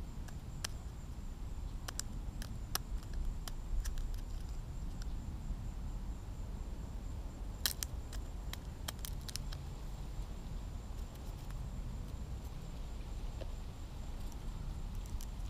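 Young Florida scrub-jays pecking at a peanut held in the fingers and hopping on hand and shoe, heard as scattered sharp clicks and taps, with a cluster of them about halfway through. Under them runs a steady low wind rumble on the microphone and a faint steady high whine.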